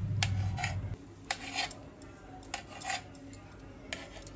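Small knife cutting steamed egg into pieces on a steel plate: several short, irregular scrapes and clicks of the blade against the metal. A low hum underneath stops about a second in.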